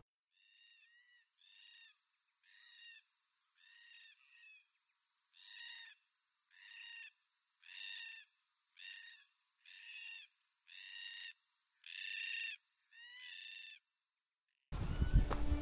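A black cockatoo calling about a dozen times, short call after short call roughly a second apart, the calls mostly growing louder, over a faint steady high-pitched tone.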